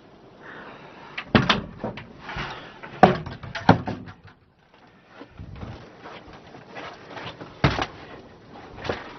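Wooden closet and cabinet doors inside a small travel trailer being handled and shut, with four sharp knocks and light rustling between them.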